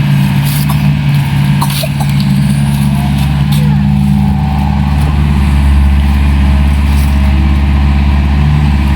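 Excavator's diesel engine running steadily, a low droning rumble that grows heavier about five to six seconds in.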